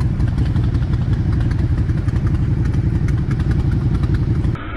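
Motorcycle engines idling at a standstill, a steady rapid pulsing of exhaust beats. The sound cuts off abruptly near the end.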